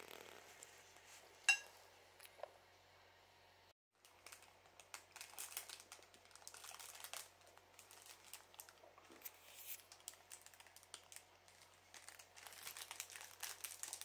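Plastic wrap crinkling in irregular bursts as hands unwrap and handle a grilled rice ball, starting about four seconds in. Earlier, about a second and a half in, a single sharp tap with a brief ring is the loudest sound.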